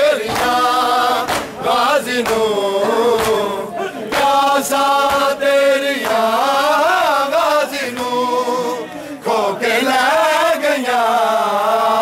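Group of men chanting a noha, a Muharram mourning lament, together in loud unison, the sung lines rising and falling and starting afresh every second or two.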